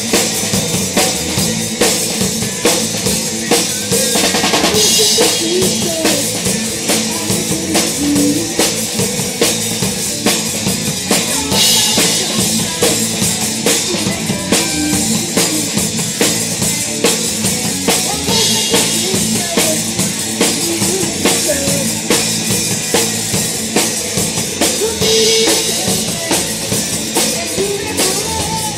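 Live rock drum kit played hard, with a steady driving beat of bass drum and snare and several cymbal crashes. The drums are loudest, as if picked up close to the kit.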